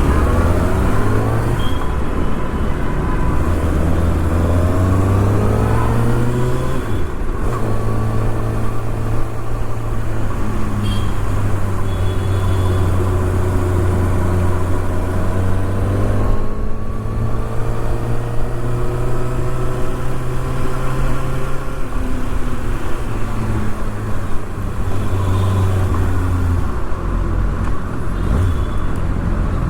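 2024 Kawasaki ZX-6R's inline-four engine on a gentle ride, its pitch rising as it pulls and dropping at gear changes or throttle-off about 7 and 16 seconds in, with traffic noise around it. The brand-new engine is ridden smoothly rather than revved hard.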